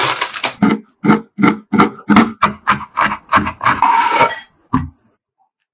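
A knife chopping a dark chocolate bar on a wooden cutting board: about a dozen sharp chops, roughly three a second, after a brief crinkle of foil at the start. The chopping stops near the end.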